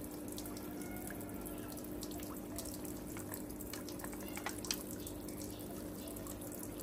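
Water trickling and splashing steadily into a tank from a small pump-fed spray, with a steady low hum and scattered small drips and ticks.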